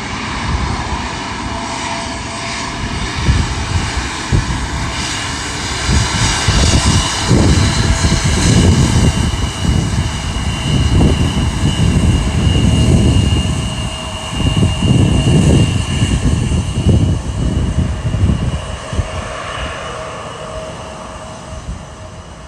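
Embraer E175 regional jet's twin General Electric CF34 turbofans running: a steady high whine over a heavy, uneven rumble. It grows louder after the first few seconds and eases off near the end.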